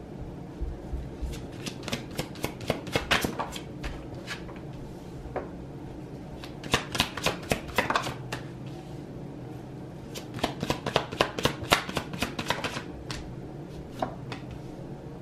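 A tarot deck being shuffled by hand: quick runs of crisp card flicks and slaps, in three spells about two seconds in, about seven seconds in, and from about ten to thirteen seconds in.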